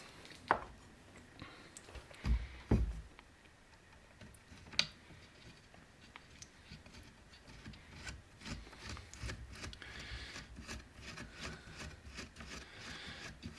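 Faint workbench handling: a few light knocks and clicks in the first few seconds, then a run of small irregular ticks and scraping as the top-handle screws of a chainsaw are turned in by hand.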